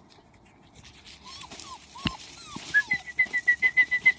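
Six-week-old puppies whimpering faintly with short rising-and-falling cries, and a single sharp click about two seconds in. Near the end comes a rapid run of high, even peeps, about eight a second, the loudest sound.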